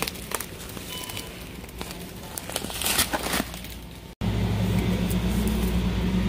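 Plastic grocery packaging crinkling and rustling as items are handled, with scattered clicks. About four seconds in it cuts off abruptly to a steady low hum from a supermarket refrigerated display case.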